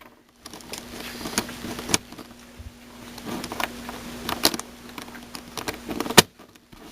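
Plastic pieces of a Meffert's 4x4 puzzle cube clicking and scraping as a piece is worked back into the cube by hand, with one sharp snap about six seconds in as it pops into place.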